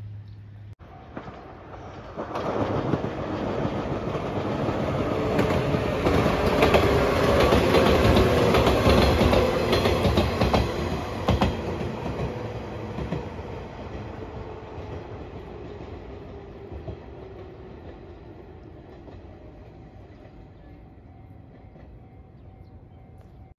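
A JR 115 series electric multiple unit passing: its running noise builds, is loudest with a few sharp wheel clacks over the rail joints, then slowly fades as it moves away.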